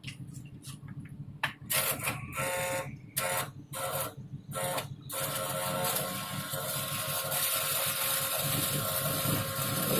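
Stick (SMAW) welding arc on carbon steel pipe. It gives several short, broken bursts as the electrode is struck and the arc starts. From about five seconds in it settles into a steady, continuous arc noise over a low hum.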